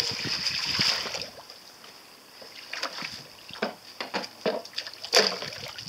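Small homemade toy foil kayak towed fast across a pool, its hull swishing and spraying through the water for about a second and a half. Then a run of short splashes and knocks as it is pulled up and bumps against the stone edge, the loudest one near the end.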